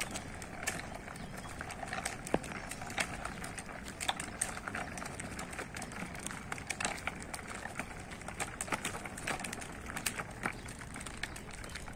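A child's tricycle rolling slowly over rough, cracked asphalt: its plastic wheels and frame give off irregular clicks, knocks and rattles, several a second.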